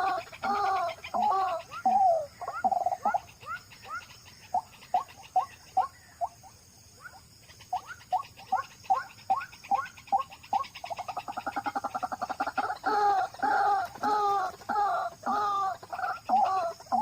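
White-breasted waterhen calling: a long series of loud, repeated notes, several a second, that thin out into quicker, fainter notes midway and then build back to the full call.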